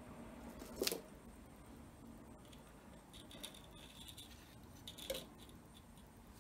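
Faint handling sounds of a brush and tools on an encaustic hot palette: a sharp tap about a second in, soft scratchy brushing through the middle, and another tap about five seconds in.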